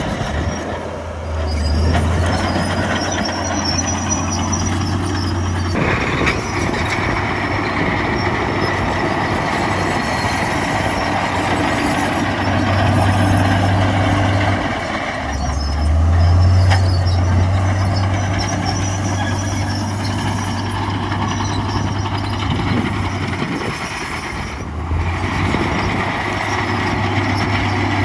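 Heavy diesel engines of a bulldozer and dump truck working. A low engine hum drops away and picks up again several times over constant mechanical noise.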